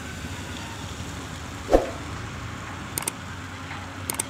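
Steady low rumble of heavy machinery running in the distance, with one sharp knock a little under two seconds in and a few quick clicks near the end.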